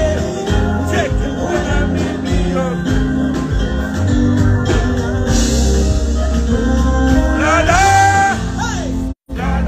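Loud music with a steady bass beat and singing, cutting out briefly near the end.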